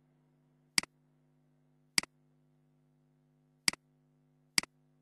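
Four sharp computer mouse clicks at uneven intervals, each with a fainter second tick just after it, over a faint steady low hum.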